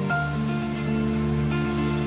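Soft background music of slow, held chords that change about a second and a half in, over an even rain-like hiss.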